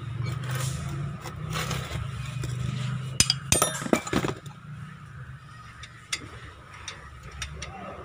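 Sharp metallic clinks and clatter, bunched about three to four seconds in, as a car's front brake caliper is set back over the new pads onto the disc, over a low steady hum that fades after the first three seconds.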